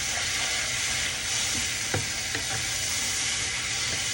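Broccoli, onions and bell peppers sizzling in a hot skillet with water just poured in: a steady hiss with a few small pops about two seconds in.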